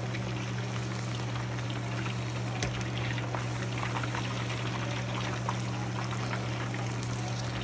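Chicken wings deep-frying in hot canola oil in a pot: a steady bubbling sizzle with small scattered crackles, over a steady low hum. The wings are at temperature and crisping up.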